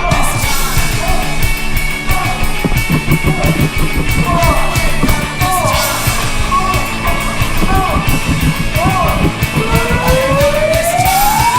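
Loud rock music with singing, a punk-rock style backing track; a long rising siren-like tone starts near the end.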